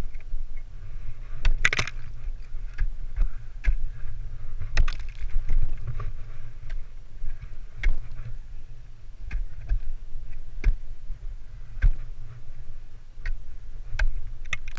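Ice axe picks striking and biting into frozen water ice: irregular sharp knocks, about one a second, with a crunchier burst of shattering ice about two seconds in. A steady low rumble runs underneath.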